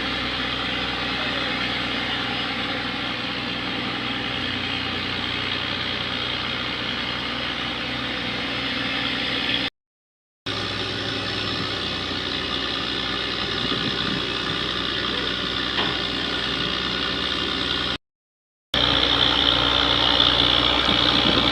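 A motor vehicle's engine running steadily, in a constant drone with no clear revving. It cuts out to dead silence twice for under a second, and comes back slightly louder after the second break.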